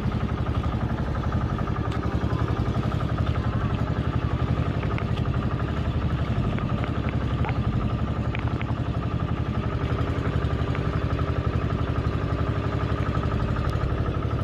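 Small motorized fishing boat's engine running steadily at constant speed, with a fast, even firing beat.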